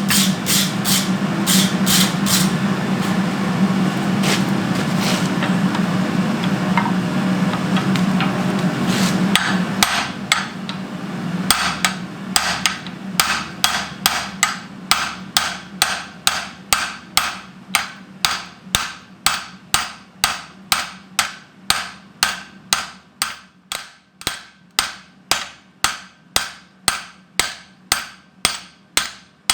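Blacksmith's hammer striking hot steel on an anvil, a few blows over a steady hum at first; the hum stops about ten seconds in, and then the blows come in an even rhythm of about two a second, gradually getting quieter.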